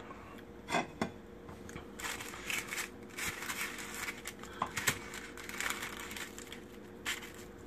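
Quiet, irregular crisp crackling and crinkling from handling crispy air-fried chicken wing flats.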